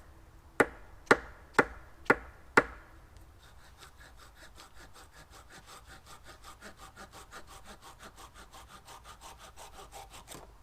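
A wooden peg knocked into an augered hole with five sharp blows about half a second apart, then sawn off flush with a hand saw in quick, even strokes for the rest of the time.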